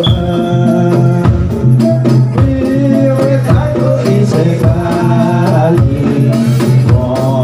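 Live kubro siswo dance accompaniment: drums beating under a melodic line, with rattle-like percussion.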